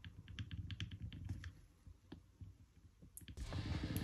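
Faint small clicks and taps of a Glock Gen 4's slide stop being wiggled against the polymer frame while a punch presses on the trigger pin. The clicks come thick at first and then thin out, and a soft scraping hiss of handling starts near the end.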